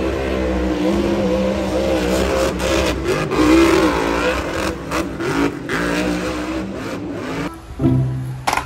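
Monster truck's supercharged V8 engine revving hard, its pitch rising and falling as the throttle is worked. It cuts off about seven and a half seconds in, giving way to background music.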